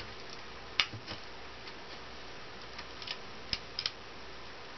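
Scattered light clicks and taps as a wire is handled and pressed into the edge of a homemade solar panel's frame, with the sharpest click about a second in and a quick cluster near the end.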